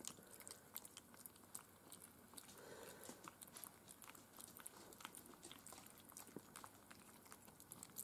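Miniature schnauzer puppies lapping soft mush from a plate: faint, irregular wet lip-smacking and clicking.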